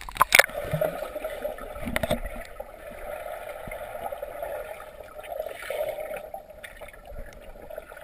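Pool water splashing and sloshing around a kayak, with a few sharper splashes near the start and about two seconds in.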